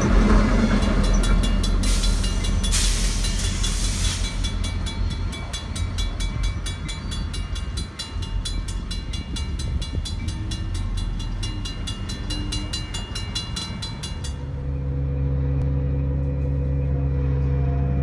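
Coaster commuter train's F40PHM2-C diesel locomotives passing close, then the train rolling away with a quick, even clicking of wheels over the rail, slowly fading. About fourteen seconds in, the sound cuts to a steady low engine hum.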